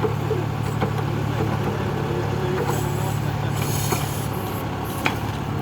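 John Deere tractor's diesel engine running steadily while it powers a backhoe attachment. There are a couple of short knocks and a brief hiss about three and a half seconds in.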